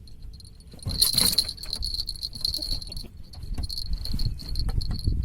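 Insects chirring in a steady high-pitched drone, with rattling clicks and a low rumble of handling that get louder from about a second in.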